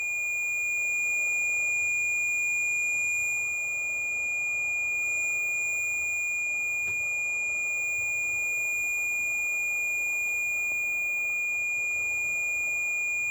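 Mel-8704 EMF/REM meter sounding its alarm: one steady, unbroken high electronic tone over a faint hiss.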